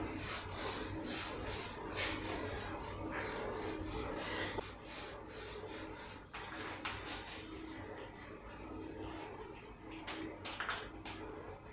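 Paint roller rolling paint onto a wooden nightstand top in repeated back-and-forth strokes, a soft hissing rub.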